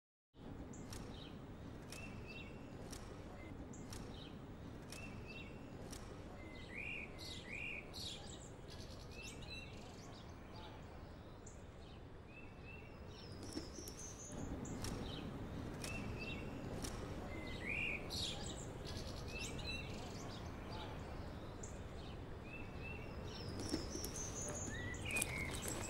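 Park ambience: a steady low background hum with songbirds chirping and calling again and again, short chirps and a few rising whistles, with a couple of sharper clicks near the end.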